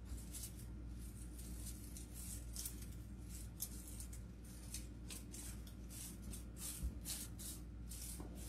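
Faint, irregular rustling and swishing of artificial flower stems and faux greenery being handled and tucked into wreaths, over a low steady hum.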